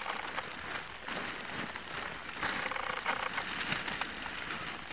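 Wood chip being handled out of a plastic sack and spread on the ground, a steady rustling, crackling patter with scattered small clicks.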